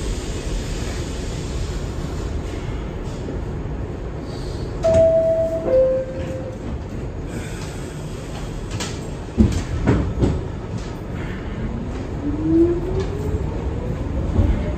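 R62 New York subway car at a station stop, over a steady rumble. About five seconds in, the two-tone descending door chime sounds. Around ten seconds in there is a cluster of knocks as the doors shut, then the traction motors' whine rises steadily in pitch as the train pulls away.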